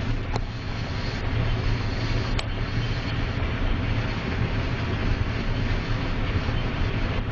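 Combine harvester running steadily while harvesting wheat: a constant low engine drone with the rushing noise of the machinery. Two faint ticks come near the start and about two seconds later.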